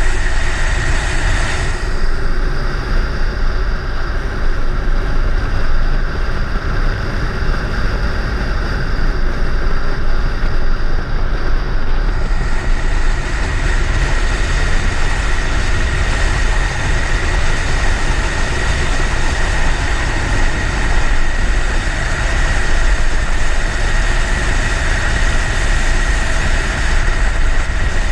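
Dual-sport motorcycle being ridden, its engine and the wind rushing over the bike-mounted microphone making a loud, steady rumble. The sound goes duller from about two to twelve seconds in.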